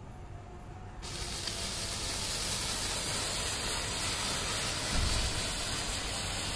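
Small 'electric stone' ground firework catching about a second in and burning with a steady, sizzling hiss.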